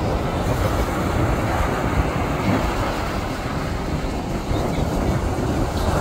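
Wind buffeting the microphone over the steady roar of a twin-engine jet airliner flying low overhead.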